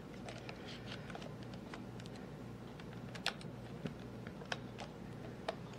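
Faint, irregular small plastic clicks and taps from handling a camcorder and plugging in its charging connector, the loudest a little past halfway, over a low steady hum.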